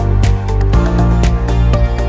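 Background music with a steady beat, about four hits a second, over sustained chords.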